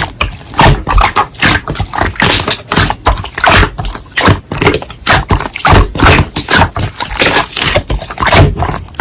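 Slime being squeezed and poked by hand, giving loud, irregular crackling pops a few times a second.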